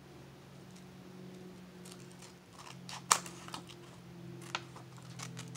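Scissors snipping through a printed photo: a few short, sharp clicking cuts, the loudest about three seconds in, over a low steady hum.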